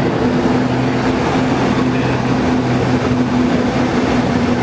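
Steady drone of a light aircraft's engines heard inside the cockpit during the landing, with two low hums over a rushing noise of air and engine.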